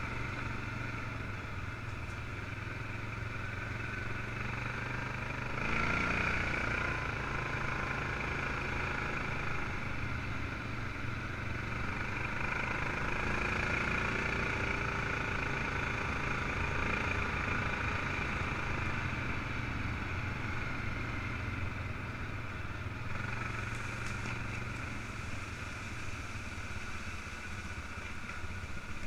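ATV engine running under way on a dirt track, its note rising and getting louder about six seconds in as the throttle opens, then holding steady.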